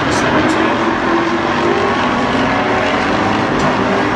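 Sportsman stock cars' engines running together as the field circles the oval, a loud, steady drone of several overlapping engine notes.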